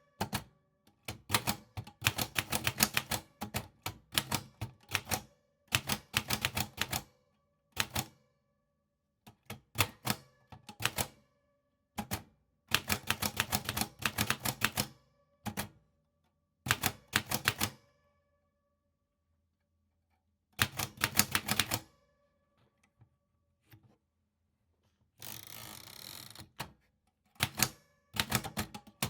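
Typewriter keys being struck in quick bursts of keystrokes, with short pauses between words. Near the end comes a smoother, steadier sound lasting about a second and a half.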